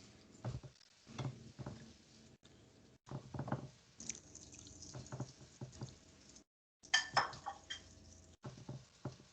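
Light clatter of dishes and cutlery: scattered small clinks and knocks, the loudest cluster about seven seconds in.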